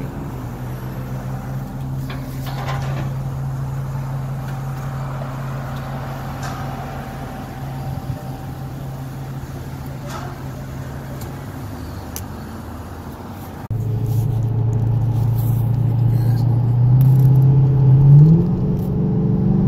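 Dodge Challenger R/T's 5.7-litre Hemi V8 running steadily at idle with its mufflers deleted, heard from outside the car. About 14 seconds in, the sound switches to inside the cabin and gets louder, and near the end the engine revs up with a rising pitch as the car accelerates.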